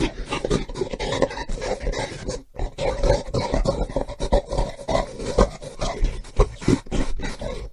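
Gorilla grunting and growling in a rapid, choppy series of short calls, with a brief gap about two and a half seconds in.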